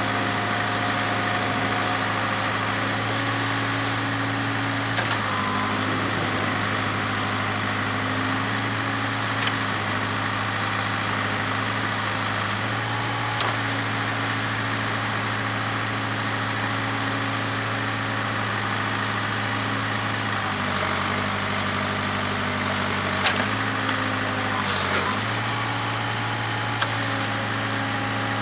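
Case 580K backhoe's diesel engine running steadily while digging, its pitch stepping up and down a few times as the hydraulics take load, with a few sharp clunks from the bucket and dirt.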